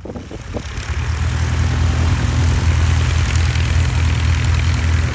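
de Havilland Tiger Moth biplane's engine running steadily at low taxiing power, a low, even propeller-engine hum that swells up over the first second.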